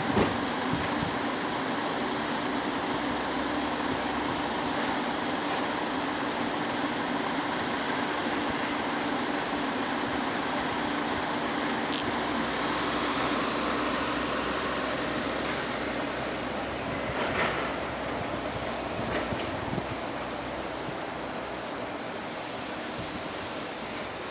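A vehicle running: a steady rushing noise with a low hum, easing off a little in the last few seconds. No siren sounds.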